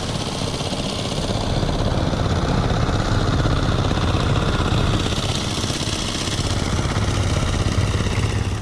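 Small boat engine running steadily, a constant drone with a low rumble.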